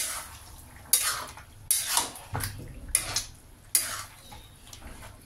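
A spoon scraping and clanking against the side of a large metal kadhai while chicken pieces are stirred through thick masala gravy, a stroke about once a second.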